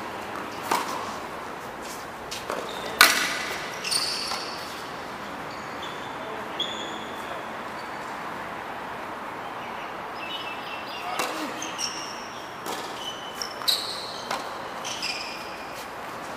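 Tennis balls struck by rackets and bouncing on a hard court: sharp knocks scattered through, the loudest about three seconds in and a quick run of them near the end.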